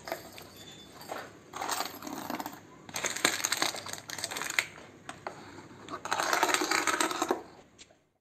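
A metal ring used as a striker, rattled and scraped across a homemade cardboard sound picture: over a fan of wooden sticks, then rubbed on crumpled aluminium foil. It comes in about four clattering passes with short pauses and cuts off abruptly near the end.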